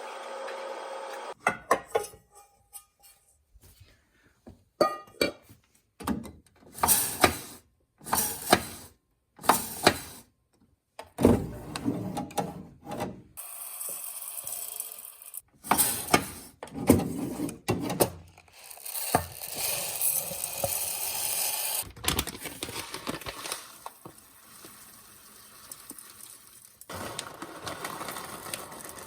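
Household handling noises: a run of short knocks, scrapes and rustles, some with a hissing edge, with brief pauses between them.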